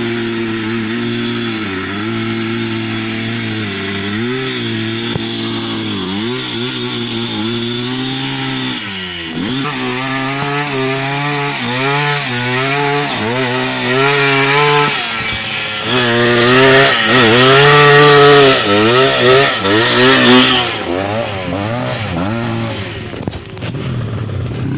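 Small motorcycle engine running, steady for several seconds, then revved up and down over and over in short throttle blips, at its loudest in the second half before settling back.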